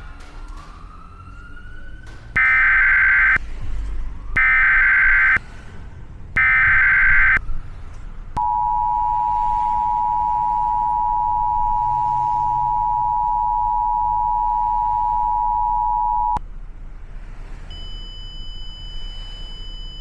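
Emergency Alert System tones: three one-second bursts of the SAME header's buzzing data tones, then the EAS attention signal, a steady two-tone 853/960 Hz tone held for about eight seconds that cuts off suddenly. A siren's rising wail fades out in the first two seconds.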